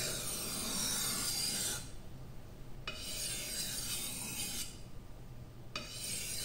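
A T10 steel wakizashi blade being pushed along a wet, high-grit whetstone to sharpen the edge, making a gritty rasping hiss. The hiss comes in three long strokes with short pauses between them.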